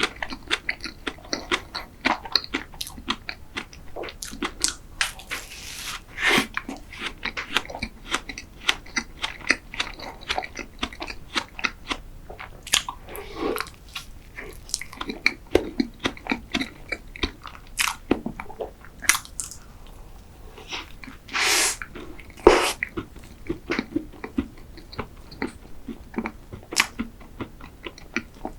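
Close-miked eating sounds of a person biting and chewing dessert: irregular small sharp crackles, clicks and wet mouth smacks following one another throughout.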